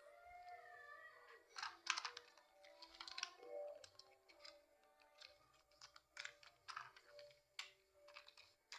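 Scattered light clicks and rustles of a children's toy train set and its packaging being handled, over faint background music.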